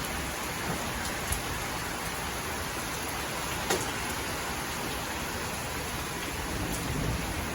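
Heavy rain falling steadily, with a few sharper taps of single drops.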